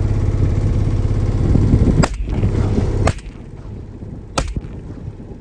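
Three shotgun shots at a flock of ducks lifting off the water, about a second apart, over the steady hum of a motor that drops away after the second shot.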